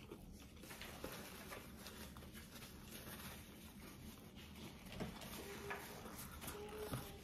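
Faint eating sounds from chicken being picked off the bone and chewed: scattered small soft clicks and rustles, with a few brief faint hums in the second half.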